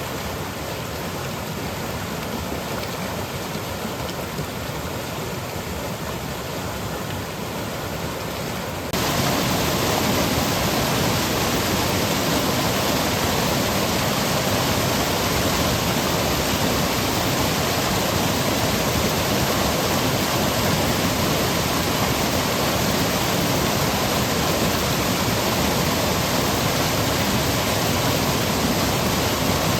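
Seasonal monsoon stream rushing and cascading over rocks and pebbles in a steady wash of water noise. About nine seconds in it jumps suddenly louder and fuller, then stays steady.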